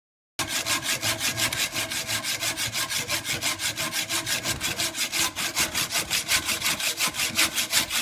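Hacksaw cutting through a steel threaded rod held in a bench vise, in quick, even back-and-forth strokes. It starts abruptly about half a second in.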